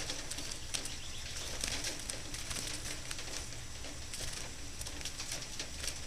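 House sparrows shuffling and calling faintly in a wire-mesh trap cage, a few short scattered ticks and chirps over a steady low rumble.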